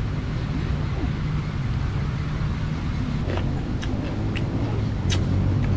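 A motor running steadily with a low hum, with several short sharp clicks from about three seconds in.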